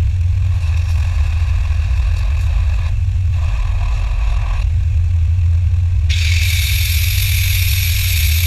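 A machine running with a steady low rumble, joined about six seconds in by a loud high hiss.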